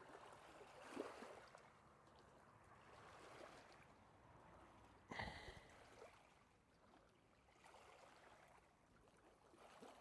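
Near silence: faint water at the shore of an estuary, with a few soft handling rustles and one short high-pitched sound about five seconds in.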